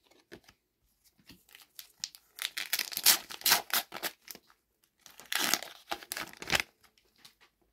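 A Panini FIFA 365 2025 card packet being torn open by hand, its wrapper crinkling as the cards are pulled out. The sound comes in two spells of rustling and tearing, the first about two seconds in and the second about five seconds in.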